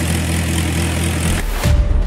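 A steady low engine drone that cuts off abruptly about a second and a half in, as music begins.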